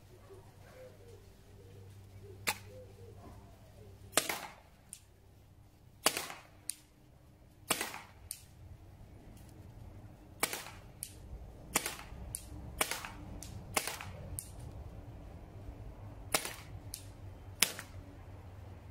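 Tippmann TPX CO2-powered pepperball pistol firing a string of about ten shots, each a sharp pop, one to two and a half seconds apart, with fainter clicks and knocks between them.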